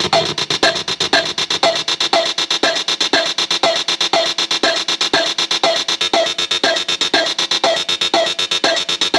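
Glitchy electronic output of a circuit-bent Korg DDD-1 drum machine patched through a digital manipulator effect: a fast stuttering run of clicks with a repeating blip about twice a second. The low end thins out about two seconds in.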